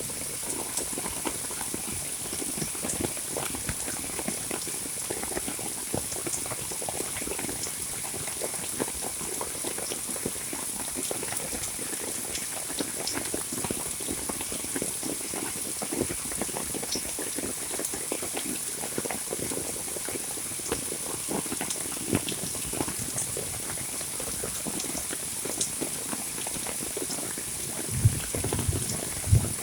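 Heavy monsoon rain falling: a dense, even patter of drops with a steady high hiss above it, and two louder thumps near the end.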